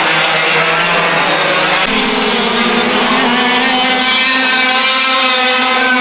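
A pack of 100cc two-stroke kart engines racing at high revs, several engine notes overlapping. About two seconds in the sound changes abruptly, and the engine notes become clearer and rise and fall in pitch as the karts accelerate and lift off.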